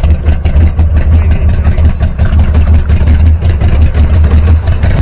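Pontiac Firebird engine idling, a loud steady low rumble with fast even pulsing, heard close by.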